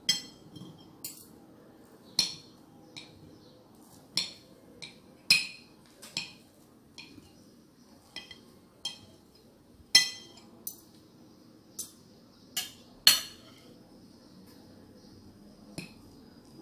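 Metal knife and fork clinking and scraping against a plate while cutting a pancake: irregular sharp clinks about once a second, loudest about ten and thirteen seconds in.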